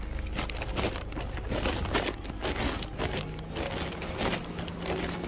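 Irregular rustling and crinkling with many small knocks, from goods and their bags being carried and handled.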